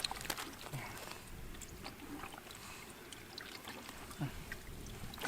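Faint water trickling and sloshing with scattered small clicks and ticks, as a hand gropes in a muddy hole for fish.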